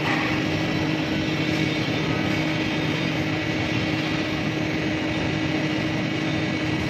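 TIG welding arc running a root pass on 2-inch pipe, with filler rod being fed in: a steady hiss with a constant low hum underneath.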